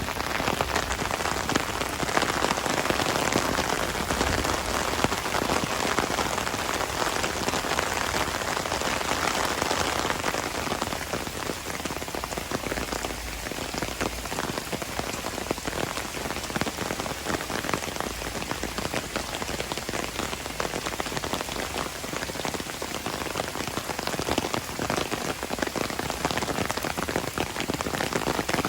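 Heavy rain falling: a dense, steady hiss of countless drops striking surfaces, a little heavier for the first ten seconds or so, then easing slightly.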